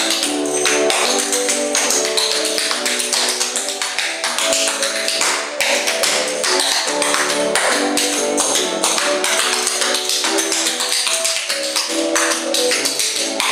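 Step dancer's hard-soled shoes beating rapid taps on a hard floor, over a fiddle tune playing for a clog, jig or reel.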